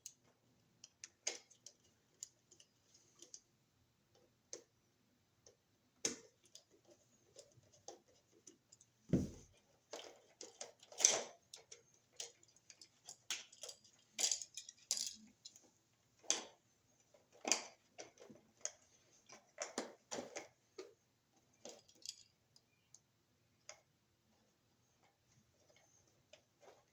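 Faint, irregular clicks, taps and scrapes of hand tools and wires being worked at a wall receptacle in its electrical box, busiest in the middle and sparse near the end.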